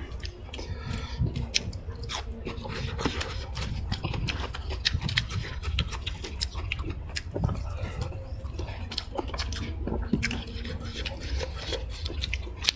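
Close-miked chewing and mouth sounds of people eating, with many short wet clicks and smacks spread through.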